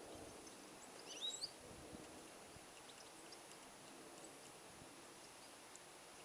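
European goldfinch giving one brief call of a few quick gliding high notes about a second in, over faint steady background hiss.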